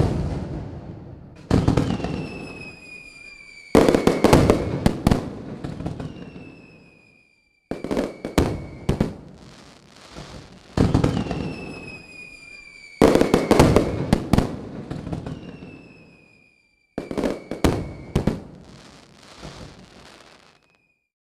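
Aerial fireworks going off in about seven sudden volleys of bangs and crackles, each one trailing away. A high whistle slides down in pitch several times between them.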